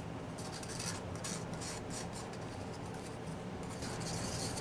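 A stick scraping and rubbing inside a small mixing cup in irregular, scratchy strokes while two-part casting resin is stirred together.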